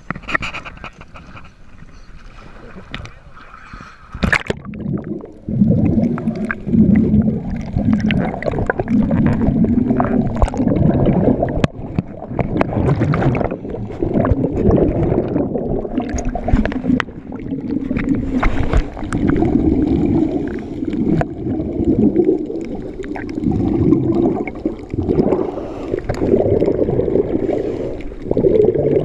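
Scuba regulator breathing underwater: the low rush of exhaled bubbles comes in loud surges every few seconds. Before it, the first few seconds are quieter, with a sharp knock about four seconds in.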